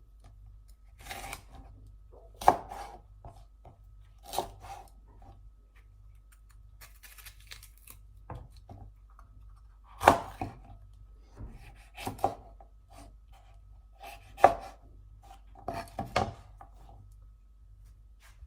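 Knife cutting bell peppers into large pieces on a cutting board: irregular knife strikes, a few of them loud chops, with softer slicing sounds between.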